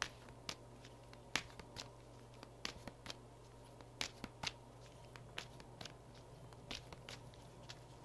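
Oracle cards being shuffled by hand: quiet, irregular taps and flicks of card against card, over a low steady hum.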